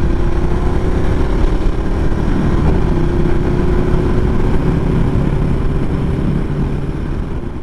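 Adventure motorcycle running while being ridden, a steady engine note over a dense low rumble, its level falling away near the end.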